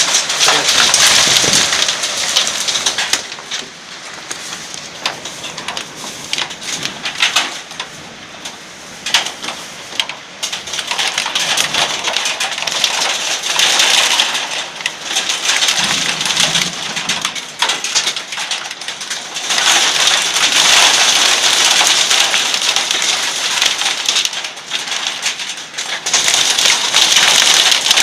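Heavy rain in a thunderstorm squall, swelling and easing in waves, with drops spattering sharply on a hard surface.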